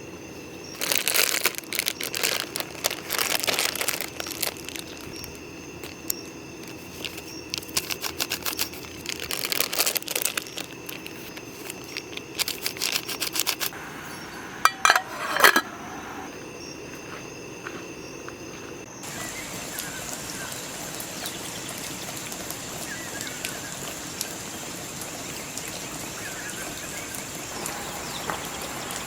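Bursts of crinkling, rustling and clicking from things being handled, loudest about 15 s in. About 19 s in this gives way to a steady hiss with a few faint chirps.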